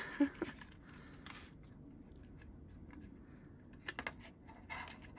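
Soft handling noises from a plastic cassette-tape-style merchandise case being worked at: faint rustling and scraping, with a quick cluster of small clicks about four seconds in.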